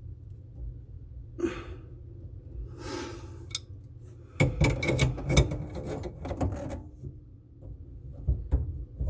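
Metal wrench clinking and scraping against a supply-line nut under a kitchen sink: a couple of soft rustles, then a quick run of knocks and rattles for about two seconds around the middle.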